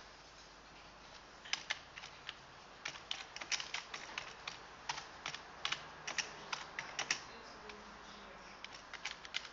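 Typing on a computer keyboard: an irregular run of key clicks, several a second, starting about a second and a half in.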